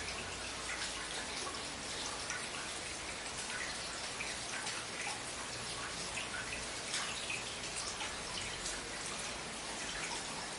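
Steady rain with many separate drops ticking and dripping close by, over a faint low rumble.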